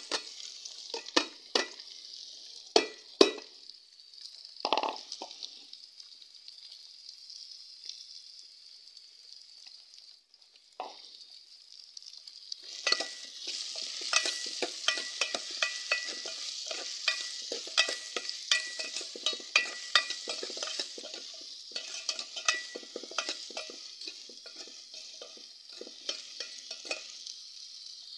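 Chopped raw mango frying in hot ghee with a steady sizzle, while a metal spoon scrapes and clinks against the metal pot as it is stirred. A few sharp knocks of the spoon come in the first few seconds. The stirring goes quiet for a while, then busy, rapid clinking runs from about halfway through until near the end.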